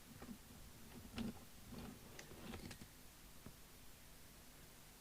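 Faint scattered clicks and light knocks of small objects being handled and rummaged through, over the first three seconds or so, then near quiet.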